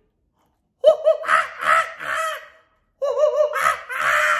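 A man's high, put-on childlike voice squealing and shrieking in mock excitement and surprise, without words. It starts about a second in and comes in two stretches, the second with a warbling, wavering pitch.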